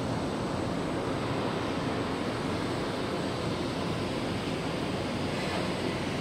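Steady rushing noise of rain and wind on an open ship's deck, with no distinct events.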